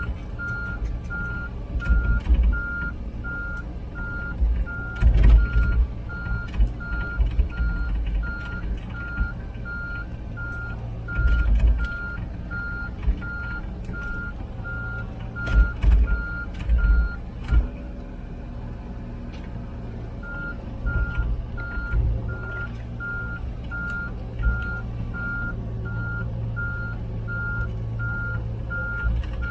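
Komatsu PC16 mini excavator travelling on its tracks: the travel alarm beeps at a steady single pitch about twice a second, stops for a few seconds past the middle as travel pauses, then starts again. Under it the diesel engine drones steadily, with occasional heavy low thumps.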